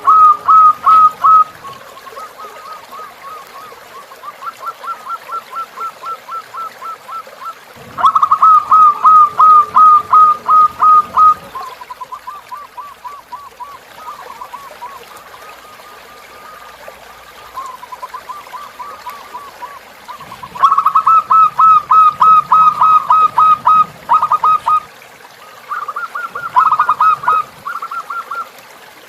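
Zebra doves (perkutut) singing in long runs of short, quick repeated notes, about eight a second, loud runs alternating with fainter ones as several birds overlap. A faint flowing-water background lies underneath.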